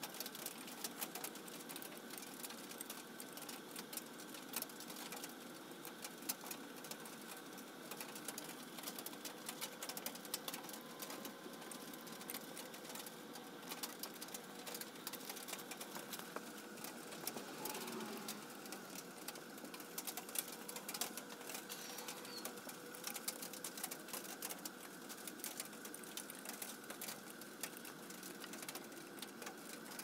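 Hand tap cutting threads in a small metal bar held in a bench vise: a run of rapid faint clicks and ticks as the tap is turned and backed off, over a steady faint hum.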